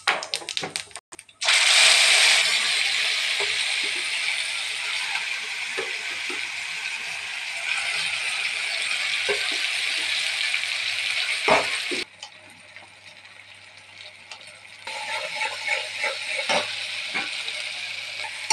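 Wet paste dropped into hot oil in an aluminium kadai, sizzling loudly from about a second and a half in and slowly dying down. The sizzle breaks off after about twelve seconds, then comes back near the end with a metal spatula scraping and tapping against the pan as the green paste is stirred.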